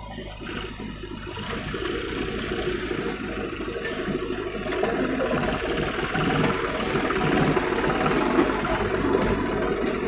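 John Deere 5038D tractor's diesel engine running as it pulls a trolley loaded with mud, the JCB 3DX backhoe's engine running alongside. The engine sound grows louder over the first few seconds as the tractor comes close.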